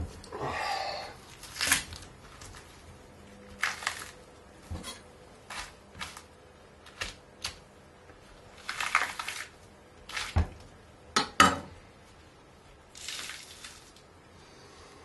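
Irregular knocks, clicks and short rustling scrapes of a dry-aged beef rib eye being handled on the board as its hardened cap is pulled away by force; the sharpest knocks come about 11 seconds in.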